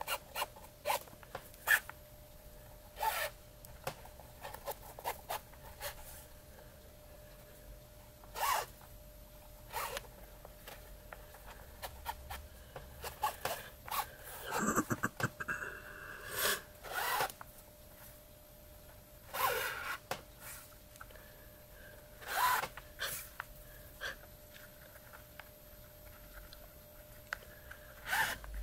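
Cord being drawn through punched holes in a leather pouch as it is laced up: short, separate pulls at irregular intervals, often a second or more apart, with some handling of the leather.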